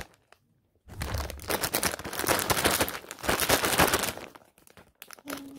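Plastic packet of Kalkan kitten food crinkling and rustling as it is handled and opened. It starts about a second in and breaks off briefly near the end.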